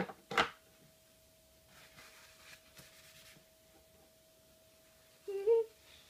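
Two sharp plastic knocks as something is set on the drip tray of a Nescafé Dolce Gusto coffee machine, then a faint steady tone. About five seconds in comes a brief pitched sound.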